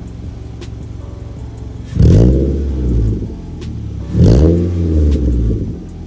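Toyota Camry exhaust through a new aftermarket sport muffler with tip: the engine idles, then is revved twice about two seconds apart, each rev climbing and dropping back to idle.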